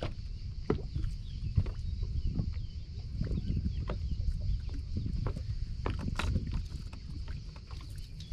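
Small waves lapping and slapping against the hull of a bass boat, with irregular knocks, over a low wind rumble on the microphone.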